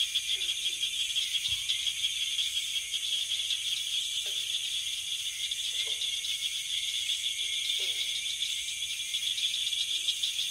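Steady, high-pitched chorus of insects chirring, with a short lower call that drops in pitch sounding a few times.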